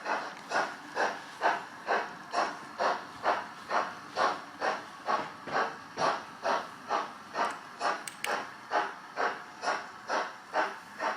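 Model steam locomotive sound decoder (Doehler & Haass, Locoman Black 5 sound file) playing a steady steam exhaust chuff, about two beats a second, as the locomotive runs.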